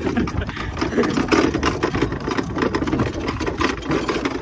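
Summer toboggan sled running down its trough track: a steady rattling rumble with many small quick knocks.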